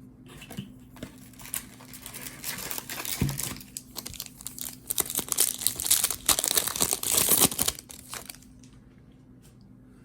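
A Topps Chrome trading card pack's wrapper being torn open and crinkled by hand, in irregular rustling bursts that grow loudest in the second half and die away near the end.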